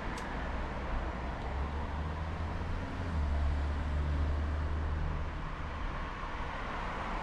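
Road traffic noise: a steady hiss with a low vehicle rumble that grows louder about three seconds in and fades again a couple of seconds later.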